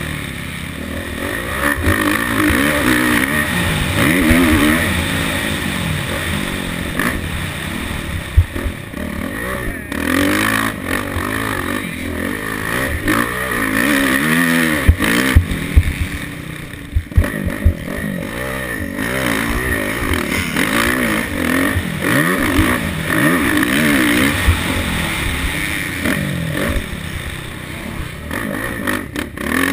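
Motocross bike's engine revving up and down again and again as it accelerates and backs off around a dirt track, heard from a helmet camera with wind noise. A few sharp knocks come through near the middle.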